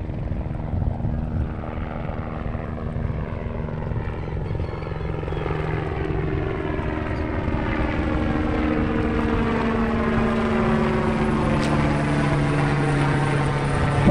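Engine drone growing steadily louder as it draws nearer, its tones sliding slowly downward.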